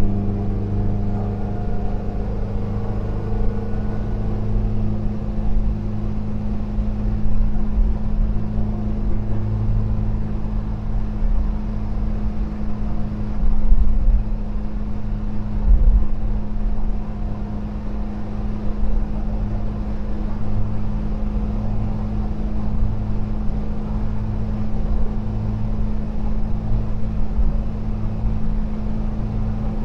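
1973 VW Devon camper van's air-cooled flat-four engine running at a steady cruise, with a constant low hum and road rumble. Two brief louder rumbles come about halfway through.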